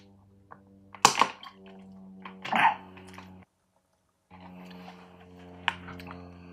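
Drinking from a plastic water bottle, with a loud sharp noise about a second in and a loud breathy exhale shortly after, over a steady low electrical hum. All sound cuts out for about a second midway, and there is a single click near the end.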